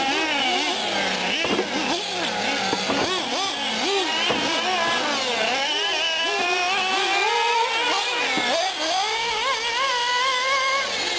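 Nitro engines of 1/8-scale radio-controlled off-road trucks running laps on a dirt track, their whine rising and falling in pitch again and again as they accelerate and let off, with several engines overlapping.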